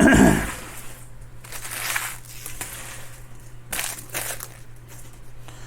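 Trading-card pack wrapper torn open with a loud crinkling burst at the start. A few shorter rustles follow, about two and four seconds in, as the wrapper and cards are handled.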